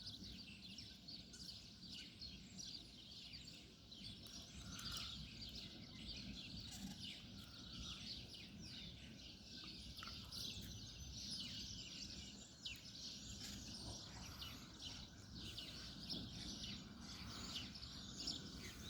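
Many small birds chirping together: a dense chorus of short, high chirps and tweets, over a steady low background rumble.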